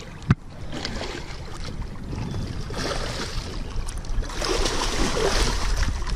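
Water splashing and churning as a hooked musky thrashes at the surface right beside the boat, growing louder in the second half. A single sharp knock sounds about a third of a second in.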